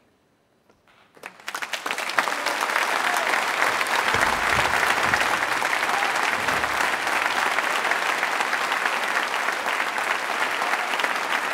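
Near silence for about a second, then an audience breaks into applause that swells within a second into steady, dense clapping.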